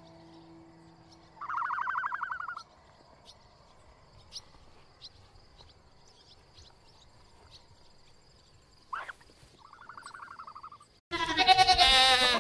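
Animal calls: a short, rapidly pulsed call at about a second and a half in and a fainter one near ten seconds, then near the end a loud, wavering bleat. A faint steady high tone runs underneath.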